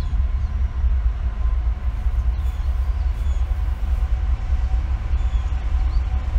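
Approaching CSX freight train: the diesel locomotives' low, steady rumble, with a faint steady hum above it.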